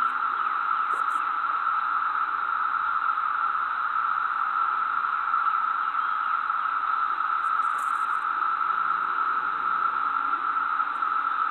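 A steady, even hiss centred in the middle of the range, with no pauses or changes in level.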